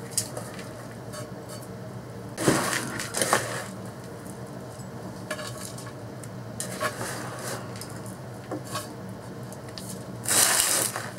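Metal hand scoop digging and scraping potting soil in a bowl and tipping it into a terracotta pot: a series of gritty scrapes and rustles, the loudest about two and a half seconds in and again near the end.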